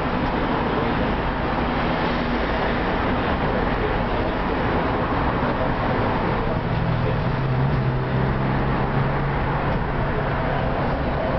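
TW6000 tram running along the track: steady wheel-and-rail running noise, with a low motor hum coming in about halfway through.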